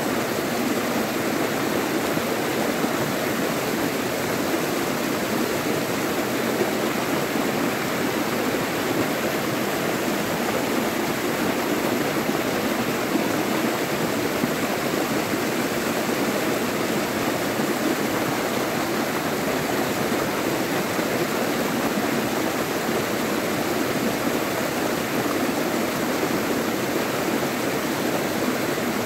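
River water flowing over rocks, a steady, even sound.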